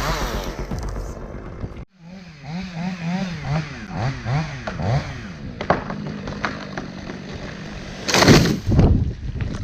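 A chainsaw with its throttle rising and falling repeatedly, then a loud crash near the end.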